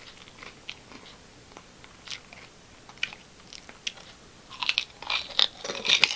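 Close-up chewing of a crisp, freshly opened snack: scattered small crunches, then a louder run of crunching about four and a half seconds in.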